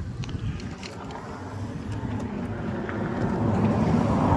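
A road vehicle passing by, its engine and tyre noise growing steadily louder to a peak near the end.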